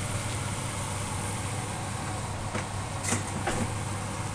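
Chicken wings sizzling and bubbling in hot oil in a wok as Coke is poured in, over a steady low hum, with a few sharp clicks a little past halfway.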